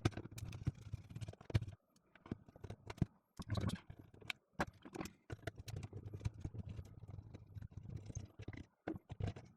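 Irregular clicks, taps and short scrapes of tools and plastic parts being handled as a small electric coffee grinder is taken apart.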